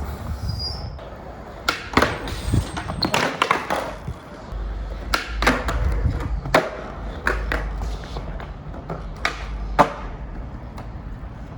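Skateboard clacking repeatedly against the ground, with sharp pops and landing slaps spread through the clip. From about halfway the wheels roll with a steady low rumble under the clacks.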